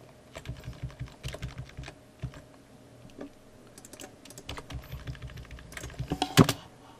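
Computer keyboard and mouse clicking: a quick, irregular run of light clicks and taps, with a louder clatter about six seconds in.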